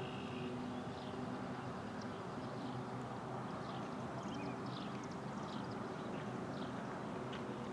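Birds chirping: many short falling chirps scattered throughout, over a steady low hum.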